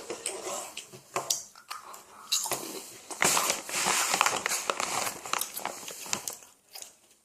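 A plastic snack bag crinkling, with crisp snack sticks being crunched and chewed in sharp bites; the crinkling is densest from about three to five seconds in.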